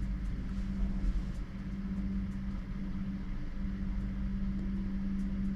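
Steady low machine hum holding one constant pitch, with a low rumble beneath and a few faint ticks.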